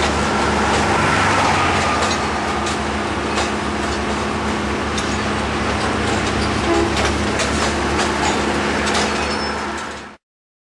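Diesel engine of a rail-mounted crane running steadily, with scattered short metallic clinks. The sound cuts off about ten seconds in.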